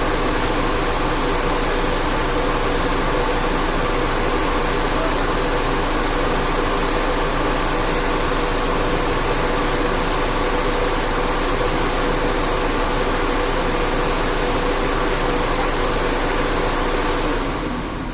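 Opel Corsa twin electric radiator fan running steadily: a loud, even rush of air with a steady hum. It switches off about a second before the end, leaving the engine idling underneath.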